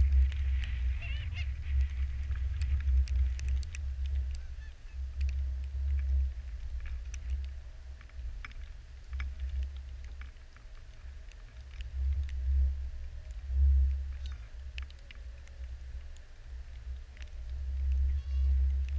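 Canada geese honking, a cluster of calls in the first few seconds and more near the end, over a loud, gusting wind rumble on the microphone.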